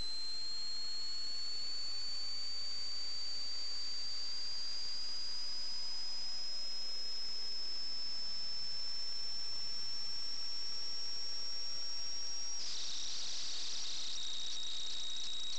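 Electronic whine and hiss from a sewer inspection camera's recording system: a thin high whine that slowly rises in pitch over a steady hiss. About three-quarters of the way through, crackling noise sets in and the whine drops back to a lower pitch.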